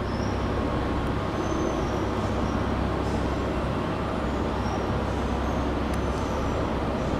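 Cercanías commuter train running through the station with a steady loud rumble, with a few short high squeals scattered through.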